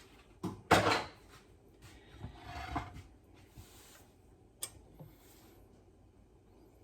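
Kitchen handling noises: a sharp knock, then a short loud scrape about a second in, a rustle around the middle, and two light clicks near the end, as plastic utensils and bowls are moved about.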